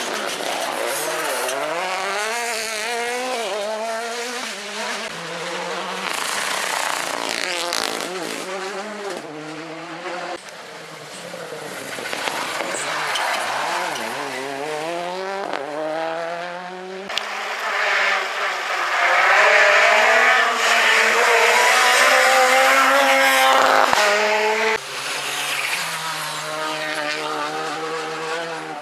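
Rally car engines, a Citroën C3 R5 among them, revving hard through tight bends, their pitch climbing and dropping with each gear change as several cars pass in turn. About two-thirds of the way through, the loudest pass adds a rush of tyre noise over the engine.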